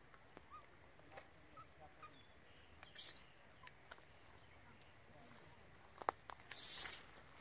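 Brief rustles of dry leaf litter as a macaque shifts and moves on the forest floor: one about three seconds in and a louder one near the end, with a click just before it. Faint short chirps sound now and then in the quiet between.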